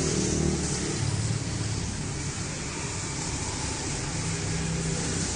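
A motor vehicle engine running steadily with a low hum, over general road traffic noise.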